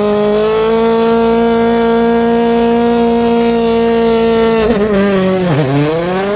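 Engine sound effect: a revving motor holding one steady pitch, then dropping and climbing again about five seconds in.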